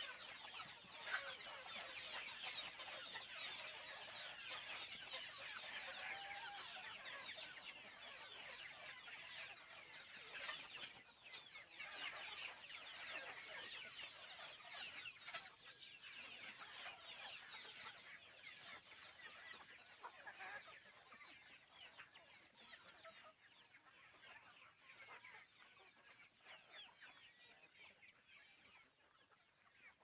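A flock of two-month-old Aseel desi chicks cheeping all at once, many short high calls overlapping. The calls thin out and get quieter toward the end.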